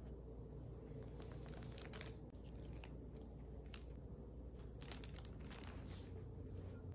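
White mailer bag crinkling and crackling under cats' paws, in faint, irregular, scattered crackles.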